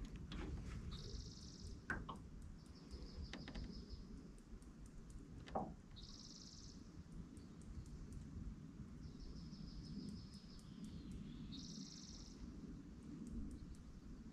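A songbird repeating short, high, buzzy trills every two to three seconds over a low rumble of wind and water. There are two sharp knocks, one about two seconds in and one about five and a half seconds in.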